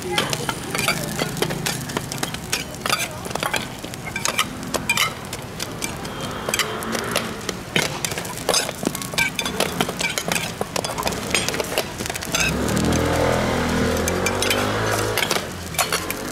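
Stainless steel dome lids clinking and tapping against a flat griddle as they are set down and pressed over hotteok, many quick metallic clicks in a row. A low drone rises for a few seconds near the end.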